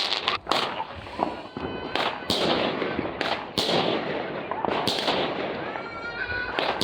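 Fireworks display: a series of sharp bangs from shells bursting overhead, about one a second, with crackling in between.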